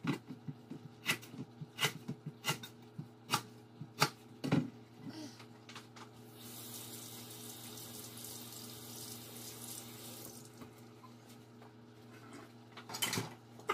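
A knife chopping lemongrass on a cutting board: a few sharp, irregular chops over about the first five seconds. Then a kitchen tap runs steadily for about four seconds in the middle.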